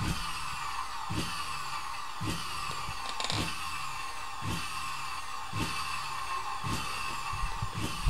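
Vacuum-cleaner motor driving a home-built generator, running in pulses about once a second. Each pulse is a short knock followed by a falling whine, over a steady high whine.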